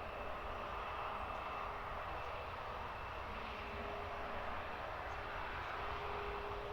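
Jet airliner engines running, a steady rushing noise with a faint high whine.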